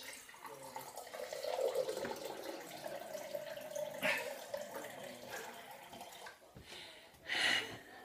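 Fridge-freezer water dispenser running a stream of water into a tall drinking glass, the pitch of the pouring rising slightly as the glass fills, until it stops about five seconds in. A short loud vocal outburst near the end.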